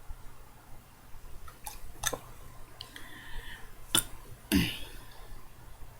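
A woman's short, low burp that drops in pitch, about three-quarters of the way in, brought up by gulping ice water. A few sharp clicks come before it.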